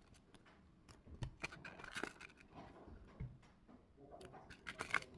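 Album packaging being handled and opened: scattered soft rustles, scrapes and small clicks of paper and plastic.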